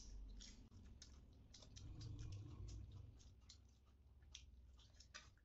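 Faint eating sounds: an irregular run of small clicks and smacks from chewing and from eating rice by hand.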